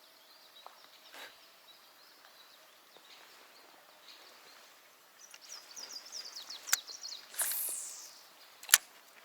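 Spinning reel handling: a quick run of ticks as the reel is cranked, a click, then the swish of line going out on a cast and a sharp click about nine seconds in, over faint outdoor ambience.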